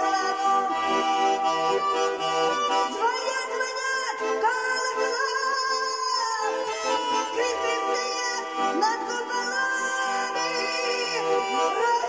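Russian button accordion (garmon) playing a song's chords and melody, with a woman singing along to her own accompaniment; her voice rises over the instrument about three seconds in and again near the end.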